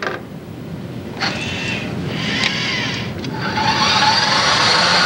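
Machinery of a robotic assembly cell running: short whirring movements at first, then, from about three and a half seconds in, a steady, louder mechanical hum and hiss.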